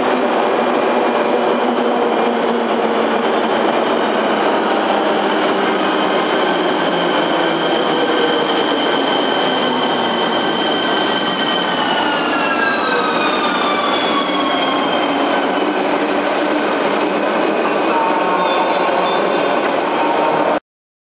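Škoda 109E (ČD class 380) electric locomotive arriving with its train. The traction converters give a whine of several tones, the sound behind its 'Messerschmitt' nickname, over the rumble of the train rolling in. About halfway through the tones glide down in pitch as the train slows, and the sound cuts off suddenly near the end.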